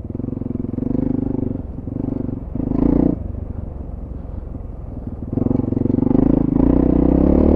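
Honda CRF450RL's single-cylinder four-stroke engine lugging at low revs in third gear. It swells briefly about one and three seconds in and pulls harder from about five seconds on. It keeps running without stalling or flaming out.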